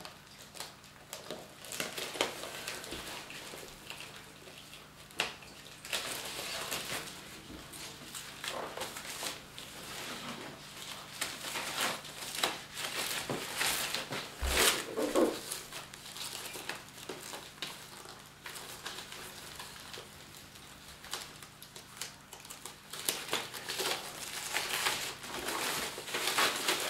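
Plastic packaging wrap crinkling and rustling in irregular spells as it is peeled off a soundbar, with a single sharp knock about halfway through.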